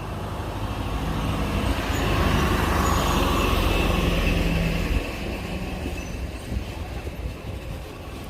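A heavy vehicle rumbling, growing louder over the first few seconds and then fading away after about five seconds, like a vehicle passing by.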